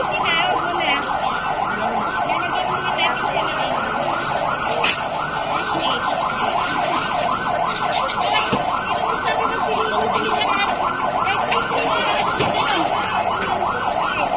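Electronic siren in a fast yelp, its pitch sweeping up and down about three to four times a second, with faint voices underneath.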